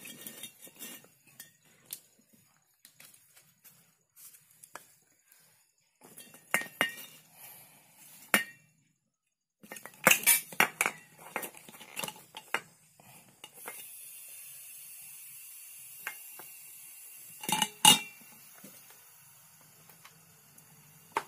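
Metal tools and fittings clinking and tapping in irregular clusters as a refrigerator's sealed system is worked on for a freon charge. A steady high hiss comes in a bit past halfway and keeps going under a last loud pair of clinks.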